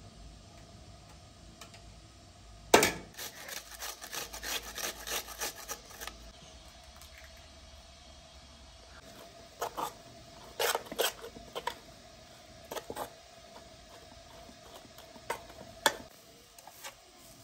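Potatoes being hand-grated on a metal grater over a steel bowl: a sharp knock, then a quick run of rasping strokes, and more scraping later. Near the end a utensil clinks and scrapes against the steel bowl as the grated potato is stirred.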